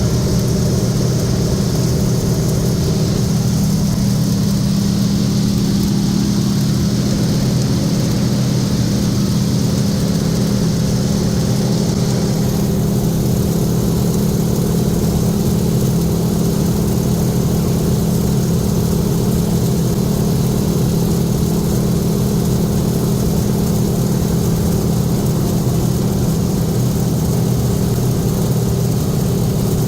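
BT-13 Valiant's Pratt & Whitney R-985 radial engine and propeller running steadily. A hiss of rushing air rides above the engine and drops away about twelve seconds in.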